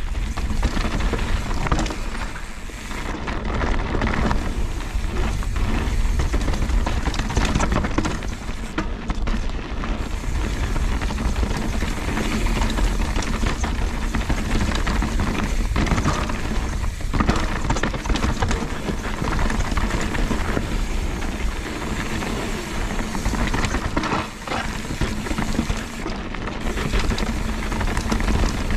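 Mountain bike riding fast down a dirt and gravel singletrack: tyres crunching over stones and roots, with the bike rattling and knocking over bumps and wind rushing over the camera microphone.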